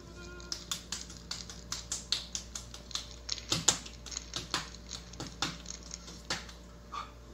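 Body percussion: quick hand slaps and taps on the chest, face and thighs and on a wooden platform box, three or four sharp strikes a second in an uneven rhythm. They begin about half a second in and stop shortly before the end.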